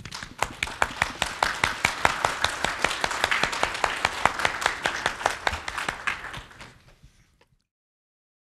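Audience applauding, with individual claps standing out, dying away after about six seconds and then cut off to silence.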